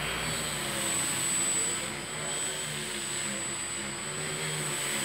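Home-built tricopter's three brushless motors and propellers whirring steadily in flight, the pitch wavering a little as it manoeuvres.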